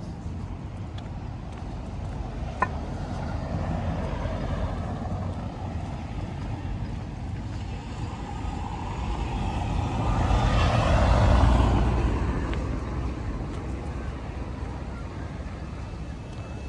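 Street traffic: a motor vehicle passes close by, growing louder and then fading about two-thirds of the way through, over a steady low rumble. A single sharp click sounds about two and a half seconds in.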